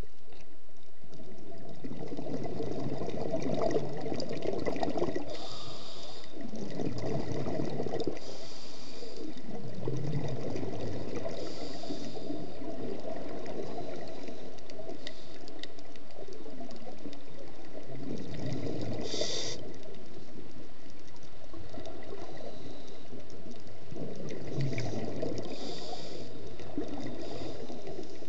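Scuba diver breathing through a regulator underwater: a short hiss with each inhalation every few seconds, alternating with gurgling bursts of exhaled bubbles.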